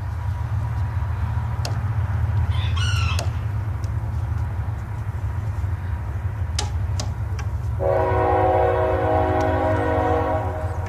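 A train horn sounds one held chord of several tones for nearly three seconds, starting about eight seconds in, over a steady low rumble. A short bird chirp comes about three seconds in.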